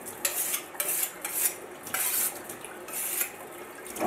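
A blade being stroked on a wet whetstone under a running kitchen tap: quick rasping strokes, about two a second, over the hiss of the water, with a knock near the end.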